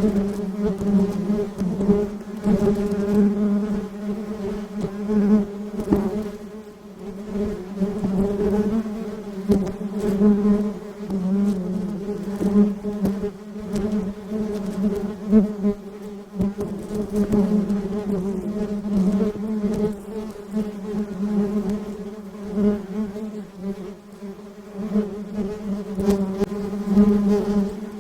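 Honeybees buzzing in a steady hum that swells and eases every second or two.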